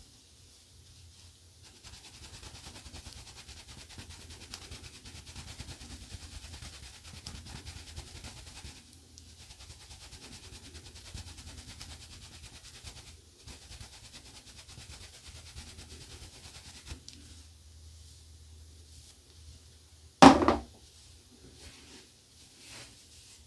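A synthetic shaving brush being rubbed and worked into a terry-cloth towel to dry it, a steady scrubbing rustle of bristles on cloth. About twenty seconds in there is one loud sharp snap, with a softer one shortly after.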